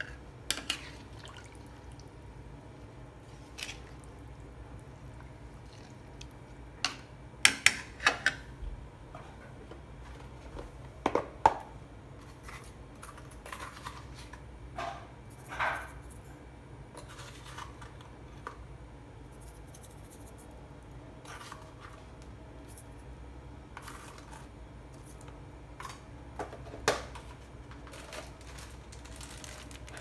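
Chicken simmering in a pan of yellow coconut-milk broth, with scattered, irregular bubbling pops over a steady low hum.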